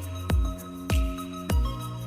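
Background music with a steady deep drum beat, a little under two beats a second, over held chords.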